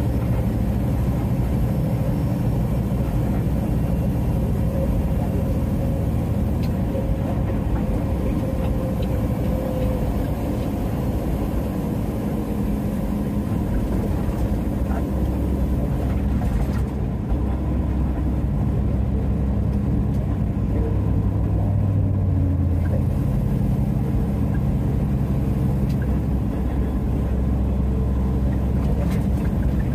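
Peterbilt semi tractor cruising at highway speed, heard from inside the cab: a steady drone of the diesel engine and tyre and road noise.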